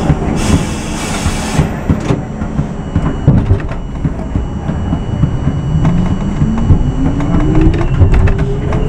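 R42 subway car standing at a station, then pulling away. A hiss of air lasts about a second, starting about half a second in. From about five seconds in, the traction motors give a whine that rises steadily in pitch as the train accelerates, over rumbling and clanking of the car.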